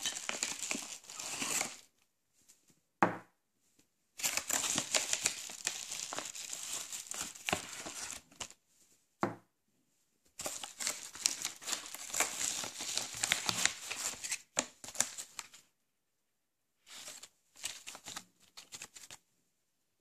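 Plastic packaging being crinkled and rustled by hand in bursts several seconds long, with silent gaps between them. Two short sharp knocks stand out, about three seconds in and again about nine seconds in.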